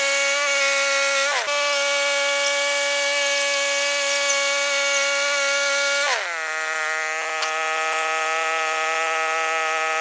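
Woodland Mills HM126 portable bandsaw mill running, its gas engine driving the band blade through a cedar log at a steady high speed. The pitch dips briefly about a second and a half in, then drops to a lower, steady note about six seconds in.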